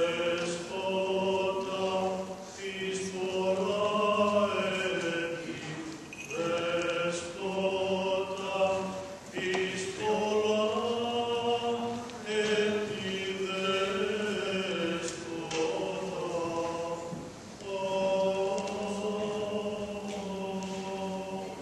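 Orthodox liturgical chant sung without instruments, in phrases of long held notes that step in pitch, with short breaks between the phrases.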